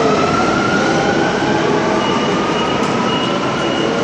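Metro train pulling out of the platform: a steady loud rumble of wheels and running gear with its motors' whine rising in pitch as it accelerates, levelling off about a second and a half in.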